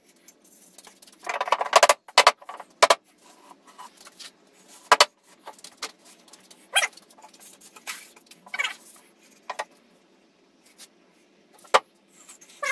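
Wooden step boards being handled and set onto a glued wooden stair frame: a string of separate knocks and taps of wood on wood, with a short scraping rush about a second and a half in.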